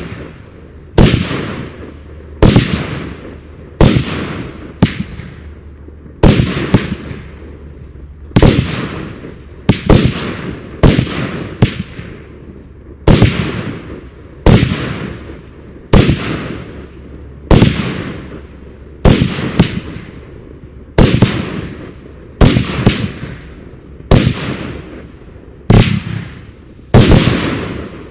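A 40-shot dahlia compound firework cake firing shot after shot: powerful booming bangs, roughly one every second or so with some close pairs, each fading off before the next.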